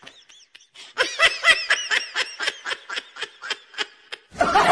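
A high-pitched snickering laugh, a quick run of short 'heh' notes at about four to five a second, added as a sound effect since neither person on screen is laughing. A louder, noisier sound starts just before the end.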